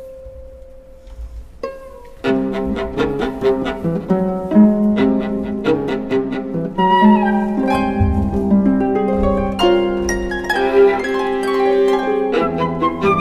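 Live chamber music for harp and viola. A soft held note, then about two seconds in the music grows louder: quick plucked harp notes under sustained bowed viola lines.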